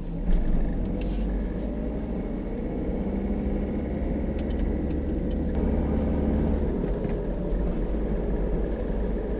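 2012 Peugeot 308 SW diesel driving, with a steady low road and engine rumble. A faint high, thin steady tone runs along with it, and a few light ticks come about halfway through.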